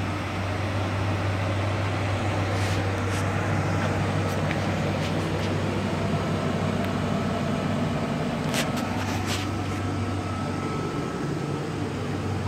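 2004 Ford F-150 engine idling steadily, a continuous low hum, with a few faint clicks about three seconds in and again near the nine-second mark.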